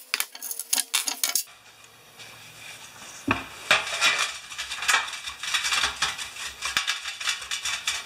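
Metal clinks as a small-engine carburetor body from a 5 hp Briggs & Stratton is handled in a metal drip pan, then, from about three seconds in, the steady scratchy scrubbing of an old toothbrush cleaning the old gasket residue off its primer face.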